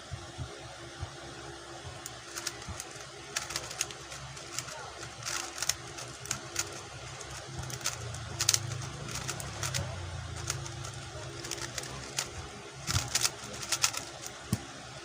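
QiYi X-Man Tornado V2 3x3 speedcube being turned fast during a timed solve: quick clusters of plastic turning clicks, thickest about halfway through and near the end.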